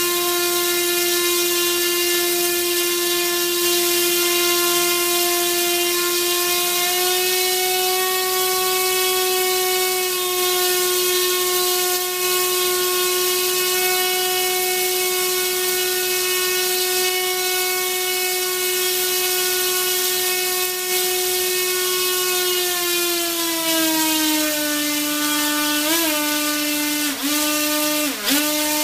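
Brushless motor and propeller on a thrust test stand running at high throttle, near 12,000 RPM, a loud steady whine with many harmonics. The pitch steps up slightly about seven seconds in, then glides down as the throttle is eased about two-thirds of the way through. Several short dips and wobbles in pitch come near the end.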